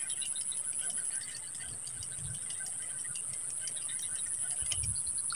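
A high, steady insect trill with a fine rapid pulse, over faint regular ticking and a couple of soft low thuds.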